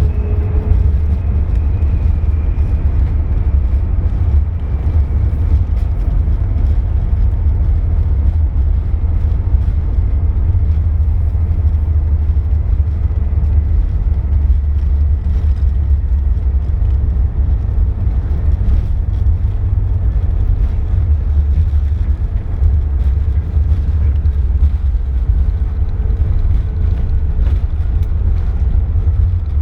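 Steady low rumble of an Airbus A380's jet engines and airflow, heard inside the passenger cabin, with a faint high whine that drops slightly in pitch in the first few seconds.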